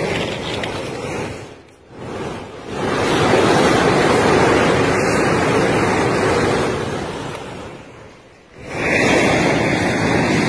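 Loud rushing noise that swells and fades in surges and drops away briefly twice.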